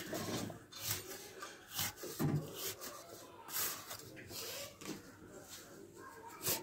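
A metal blade scraping and chopping through dry, crumbly mud on a concrete floor: irregular gritty scrapes and knocks as the clods break apart.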